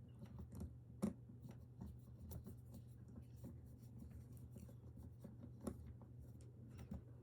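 Small Torx screwdriver turning the screws back into an OTF knife's handle: faint, irregular little clicks and scrapes of the bit in the screw heads, with a sharper click about a second in.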